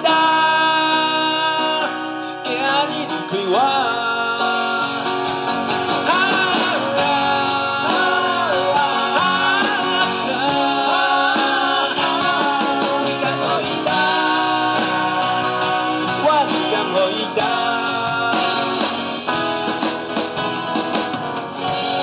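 Live acoustic band music: a male voice singing a melody with wavering pitch over two acoustic guitars.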